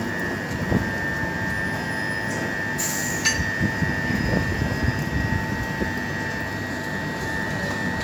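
Steady electrical whine of c2c Class 357 electric multiple units standing at the platform, two constant tones over a low rumble, as one unit edges up to couple to the other. A brief sharp noise about three seconds in.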